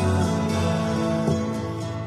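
Background music: a gentle acoustic-guitar song, sustained chords with no singing in this stretch.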